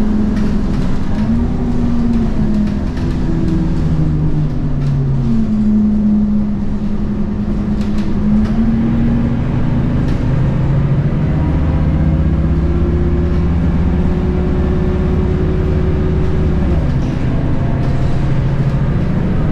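Scania K230UB bus's 8.9-litre DC9 five-cylinder diesel engine, heard from inside the passenger cabin, working through the gears of its ZF Ecomat 6HP502C automatic gearbox. The engine note drops and rises several times as the gearbox changes gear, with a deep rumble under acceleration from about halfway through.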